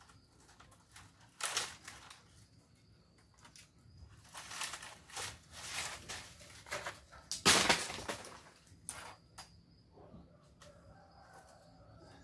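Several bursts of rustling, the loudest about seven and a half seconds in, with a faint high chirping of insects or birds in the quieter stretches.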